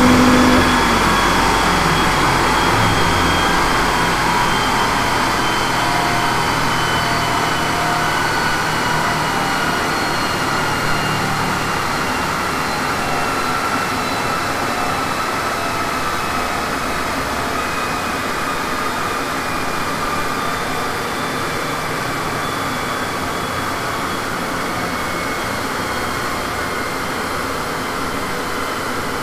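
A car coasting down on a chassis dynamometer right after a full-throttle sweep, clutch still engaged so the drivetrain losses can be measured. The engine note drops away in the first few seconds. The spinning rollers and tyres then run on with a steady rushing noise and a whine that slowly falls in pitch as they slow down.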